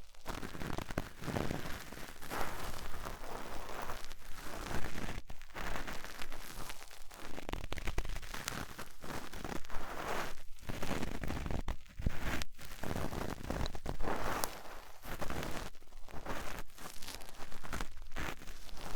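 Cotton swab rubbing and scraping against the ear of a 3Dio binaural microphone. It is a close, scratchy rustling in uneven strokes with short pauses between them.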